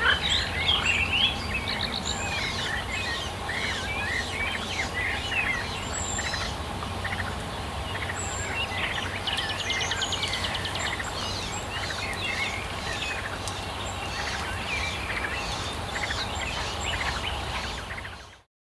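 Several songbirds singing together, a busy mix of chirps, whistles and rapid trills over a low steady hum. It fades out near the end.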